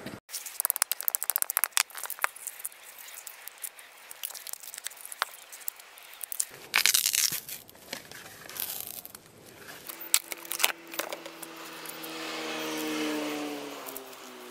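Plastic mould crackling and popping as it is flexed, split and peeled off a cured blue epoxy resin and jarrah wood casting, with a louder tearing scrape about seven seconds in. From about ten seconds in a steady hum of several pitches sets in.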